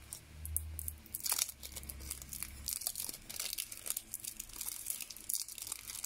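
Cosmetic packaging for a highlighter being crinkled and torn open by hand, with short irregular crackles throughout.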